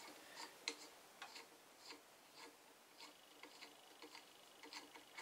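Near silence with faint small clicks, about two a second and irregularly spaced, from a hand working the jaw bolts of a homemade four-jaw wood-lathe chuck.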